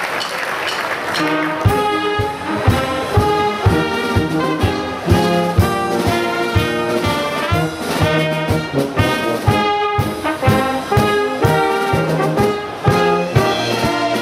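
Applause, then about a second in a band strikes up a lively tune, trumpets and other brass over drums with a steady beat.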